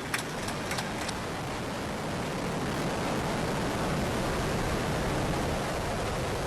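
Steady noise of the Ares I-X's solid-fuel first-stage rocket motor burning during ascent, growing slightly louder over the first few seconds, with a few faint crackles near the start.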